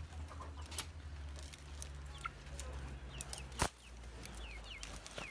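Birds chirping with short, high, falling calls, over a low steady hum that stops with a sharp knock about three and a half seconds in.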